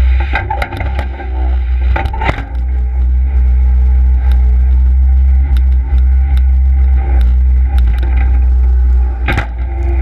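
Case skid steer loader's diesel engine running steadily, with a strong low hum, and a few sharp knocks in the first couple of seconds and a louder one near the end.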